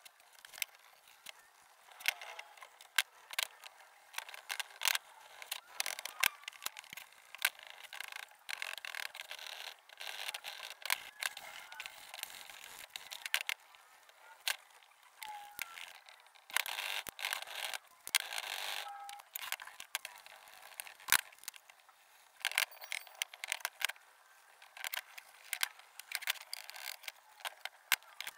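Steel wool and 400-grit sandpaper rubbing over the painted cast iron pieces of a mantel clock case in scratchy bursts. Frequent sharp clicks and knocks come from the metal parts being handled and set down on a wooden bench.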